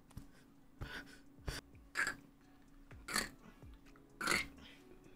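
Hands fluffing and rustling long curly hair close to the microphone, in about five short rustling bursts with a few soft low bumps.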